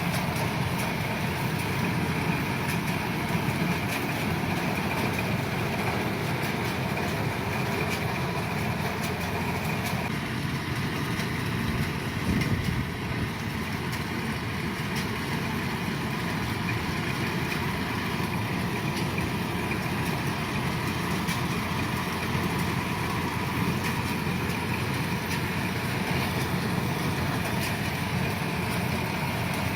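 Kubota DC-105 combine harvester's diesel engine and threshing machinery running steadily, with a brief louder knock about twelve seconds in.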